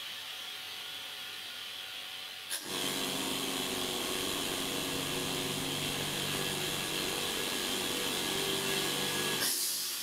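Small oil-less air compressor under a digital pressure switch: a steady hiss of air, then a click about two and a half seconds in as the switch cuts the motor in. The compressor runs steadily for about seven seconds as the tank pressure climbs, then cuts out near the end with a short burst of hiss.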